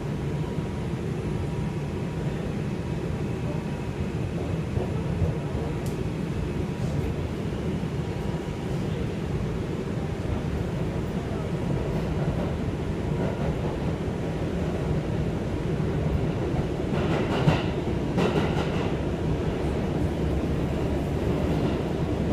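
R142 subway car running on the track, heard from inside the car as a steady low rumble. About three quarters of the way through there is a brief louder, higher-pitched stretch.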